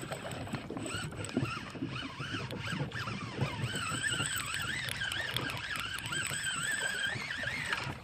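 Baitcasting reel being cranked, its gears giving a continuous whine that wavers up and down in pitch with each turn of the handle and stops abruptly near the end, as a bass is reeled in. Wind and water rumble lies underneath.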